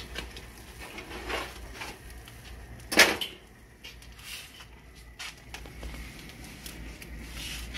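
Metal clanks and clinks of a hinged wire fish-grilling basket being opened and handled on a gas grill's metal grate, with one loud clank about three seconds in and a few lighter knocks around it.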